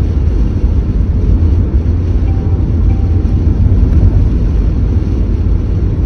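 Steady low rumble of road, tyre and running-gear noise inside the cabin of a 2013 Subaru Forester cruising at highway speed.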